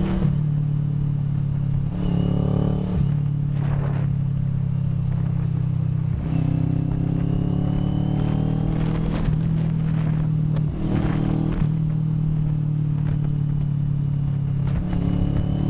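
CFMoto NK400 motorcycle's parallel-twin engine running under way, its note rising several times as it accelerates, with short dips between the climbs, over a low steady rumble.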